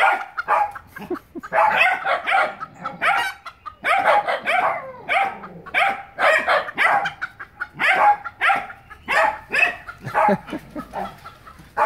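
Dog barking over and over, about two barks a second, in an excited run, a dog eager to get at the chickens.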